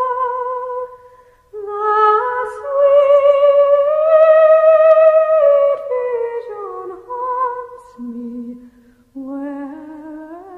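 Slow, wordless vocal melody of long held notes with vibrato, breaking off briefly about a second in and again near the end.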